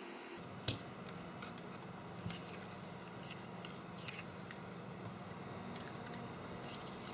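Faint scattered clicks and scrapes of desoldering work, a soldering iron and solder wick worked over a circuit-board pad, with a light knock under a second in. A faint low hum runs underneath.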